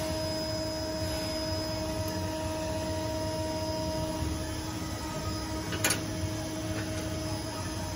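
Steady low hum with a few held tones, and one sharp click about six seconds in as the bottle holder is handled on the screen printing machine's metal frame.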